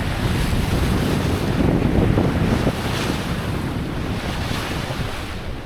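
Wind buffeting the microphone over the rush and slosh of water along a sailing yacht's hull as it sails through the sea, a steady unpitched noise.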